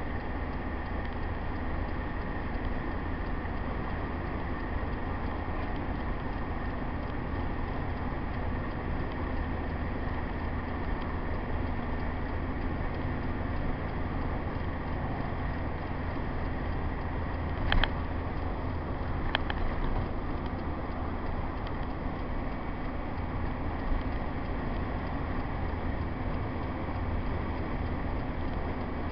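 Cabin noise of a Hymer motorhome driving at motorway speed: steady engine and road noise with a low hum, and two short sharp clicks or knocks about a second and a half apart, a little after two-thirds of the way through.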